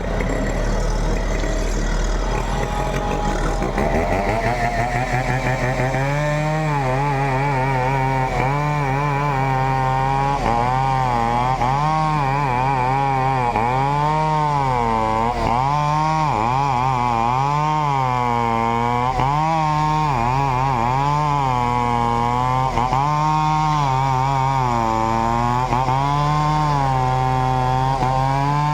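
Chainsaw cutting, its engine pitch dipping and rising every second or two as it bogs under load and picks up again.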